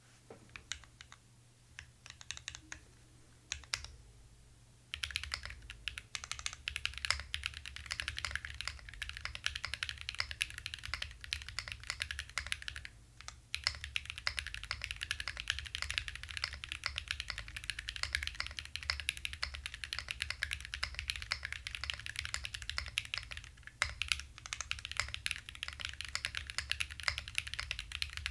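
Typing test on a split ergonomic mechanical keyboard with MX-style switches, its plate in a bottom isolation mount on silicone screw tabs. A few scattered keystrokes, then fast continuous typing from about five seconds in, with a short pause near the middle.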